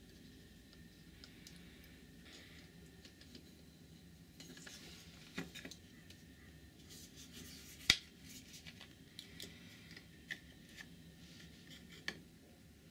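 3D-printed plastic housing parts and a circuit board being handled and fitted together: faint scraping and rubbing with scattered small clicks, the sharpest click about eight seconds in.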